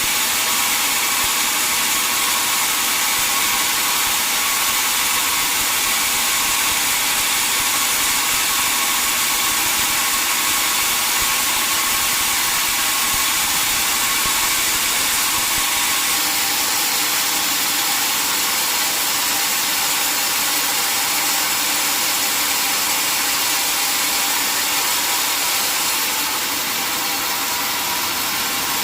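Sawmill saw machinery running with a loud, steady, hissing noise, dropping a little near the end.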